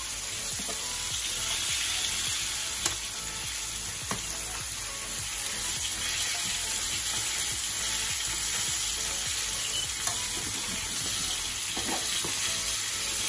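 Flour-coated chicken drumsticks shallow-frying in hot oil: a steady sizzle, with two sharp clicks, about three seconds in and again about ten seconds in.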